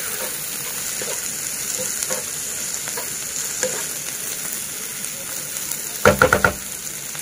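Sliced cabbage, carrot and onion sizzling in oil in a non-stick wok while being tossed and stirred with a silicone spatula, with faint scrapes as it moves. About six seconds in comes a short run of sharp knocks, the loudest sound.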